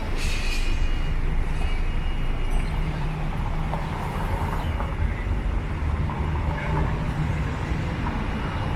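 City street traffic: a steady low rumble of vehicle engines passing by, stronger for a few seconds in the middle.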